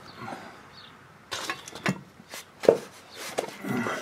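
Irregular metallic clicks and knocks of a socket wrench and bolts being handled and fitted into a mower's frame, the loudest knock a little before three seconds in.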